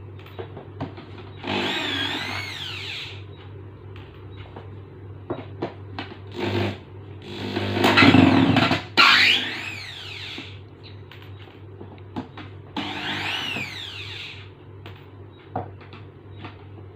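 Packaging being opened and handled: three drawn-out scrapes that rise and fall in pitch, the loudest about eight seconds in, with scattered clicks and knocks over a steady low hum.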